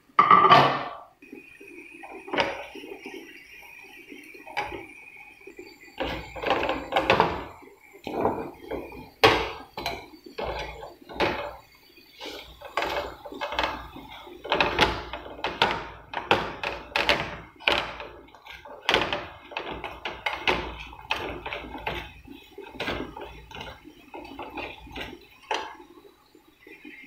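A metal spoon stirring and scraping sesame seeds, flax seeds and crushed almonds through thick sugar syrup in a black non-stick frying pan, with irregular scrapes and knocks on the pan one to three times a second. It opens with a loud burst as the seeds go into the bubbling syrup.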